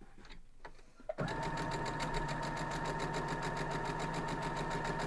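Electric domestic sewing machine starting about a second in and stitching a seam at a steady speed, with a fast, even needle rhythm over a constant motor tone.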